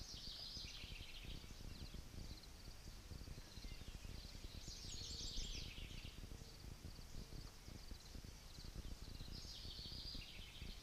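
A songbird singing three short phrases of rapid repeated notes that step down in pitch, about five seconds apart, over a low wind rumble.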